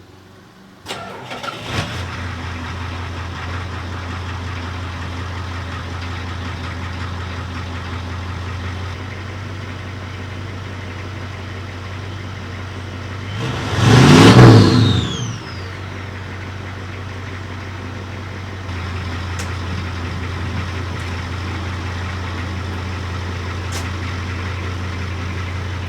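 Ford F-350's 6.9-litre IDI V8 diesel cold-starting: it catches about a second in and settles into a steady idle. About halfway through it is revved once, the loudest moment, then drops back to idle.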